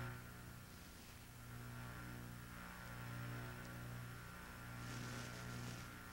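Faint, low droning hum with a few overtones, swelling and fading every second or two.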